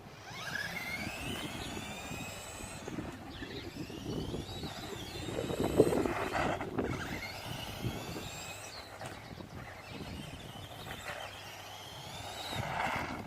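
Remote-control car's motor whining, its pitch rising and falling as the throttle is pulled and released through a drift, over the rasp of the tyres on the ground. There is a sharp knock about six seconds in.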